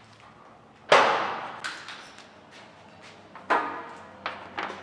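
A few sharp knocks and clatters from oscilloscope test leads and their clips being handled, each ringing out in the echoing shop. The loudest comes about a second in, with lighter ones later.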